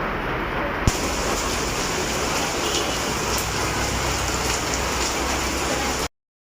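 Heavy downpour: a steady hiss of rain, with one click about a second in. The sound cuts out completely just before the end.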